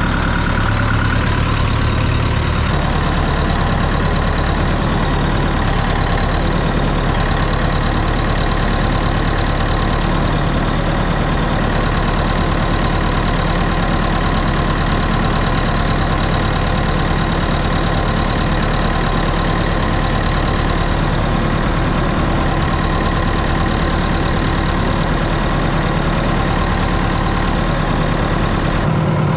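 Massey Ferguson 168 tractor's four-cylinder diesel engine idling steadily.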